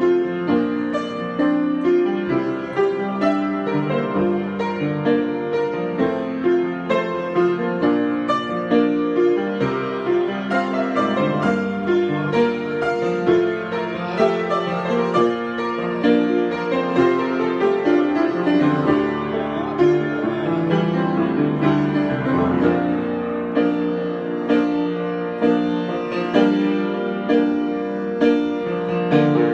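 Solo piano being improvised, a continuous stream of many overlapping notes and chords with frequent note attacks.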